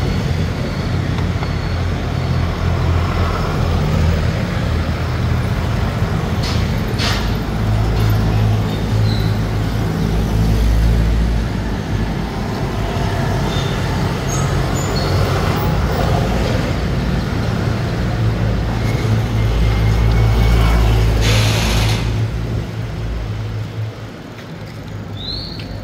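Street traffic: motor vehicles and scooters passing over a steady low rumble. A couple of brief hissing swells come through, and the rumble drops away near the end.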